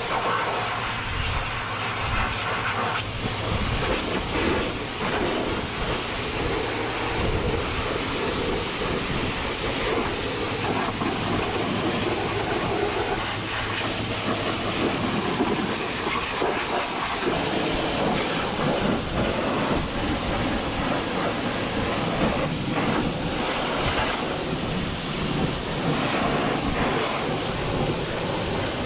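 High-pressure washer spraying water onto farm machinery, a steady rush of spray.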